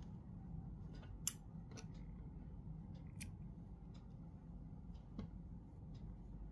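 A handful of sharp clicks and taps from crochet tools and the crocheted piece being handled on a wooden tabletop, the loudest a little over a second in, over a low steady background hum.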